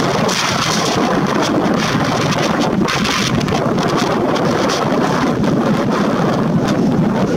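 PKP EP07 electric locomotive standing at the platform with its cooling blowers running: a steady, loud rushing noise.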